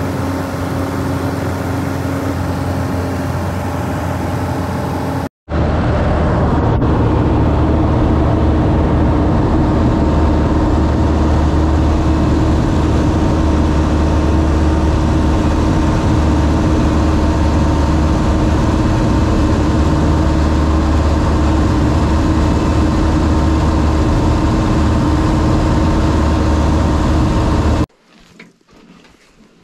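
Small single-engine bush plane in flight, heard from inside the cabin: a loud, steady engine and propeller drone. It breaks off briefly about five seconds in, resumes, and cuts off near the end.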